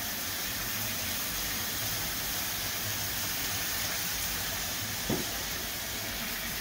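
Gilbaka fish pieces and curry paste sizzling in an open frying pan, a steady hiss. One brief louder sound about five seconds in.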